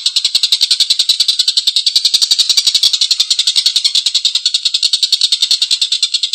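Tengkek buto kingfisher giving its long, harsh rattling cackle: a continuous run of rapid, rasping notes, about a dozen a second.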